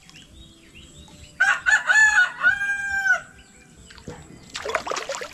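A rooster crows once, about a second and a half in: a few short notes and then one long held note. Near the end there is a brief splash of water.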